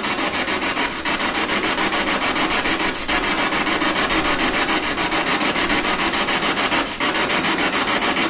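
Handheld spirit box sweeping through radio frequencies: a steady loud hiss of radio static chopped into about five pulses a second.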